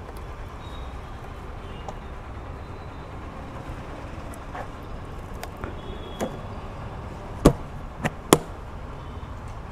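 Motorcycle top case being shut and latched. A few light knocks of handling come first, then three sharp clicks in quick succession near the end, over a steady low background rumble.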